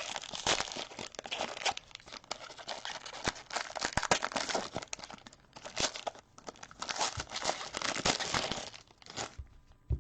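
Trading card pack wrapper being torn open and crinkled by hand, with the cards shuffled out: irregular crackling, tearing and sharp clicks.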